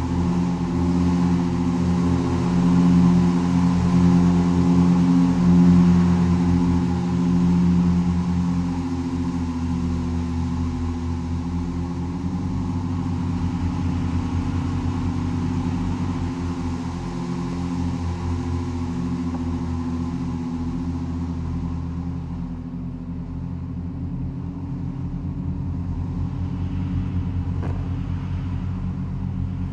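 A pipe organ (Wolff & Associés opus 24, 1981) holds a cluster of low sustained notes that beat against one another in a fast throbbing pulse. Above them is a faint buzzing haze from amplified percussion vibrating in sympathy with the organ. The buzz dies away about two-thirds of the way through, while the organ drone carries on.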